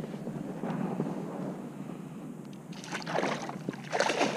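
Water splashing as a walleye thrashes while being scooped into a landing net beside a kayak, in two bursts about three and four seconds in, over a low steady rumble.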